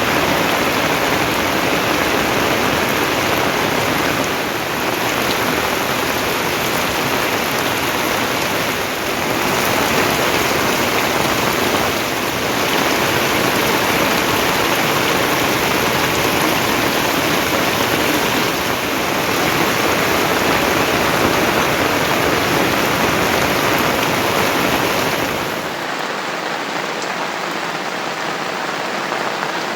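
Heavy rain falling, a steady dense hiss; about 26 seconds in it turns lighter and quieter.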